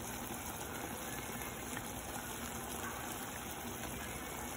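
Pot of liquid simmering with Cornish hens in it, a steady, even bubbling.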